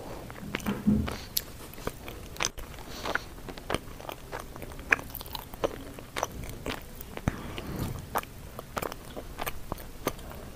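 Close mouth sounds of someone chewing raw sweet potato leaves: irregular crunches and clicks, a few a second.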